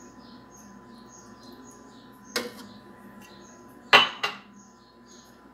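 Kitchenware knocking and clinking on a granite countertop: one knock about two and a half seconds in, then two louder ones close together about four seconds in. Faint high chirps repeat throughout.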